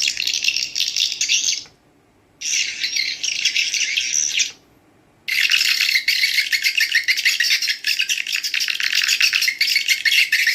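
Swiftlet call-sound recording (a 3D-edited lure track) played back: dense, rapid, high twittering of many birds at once. It cuts off abruptly about two seconds in, resumes, cuts off again about four and a half seconds in, and starts once more about five seconds in, continuing steadily.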